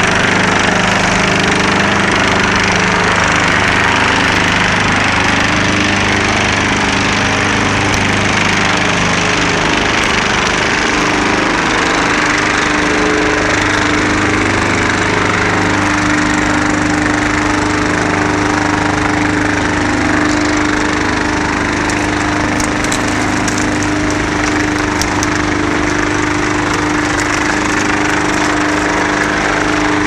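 Pezzolato PTH 1000/1000 E drum wood chipper, driven by a 250 kW electric motor, running steadily under load as its toothed feed roller draws in sawmill slabs and edgings to be chipped. A loud, continuous machine noise with a steady hum, and a scatter of sharp cracks about three-quarters of the way through.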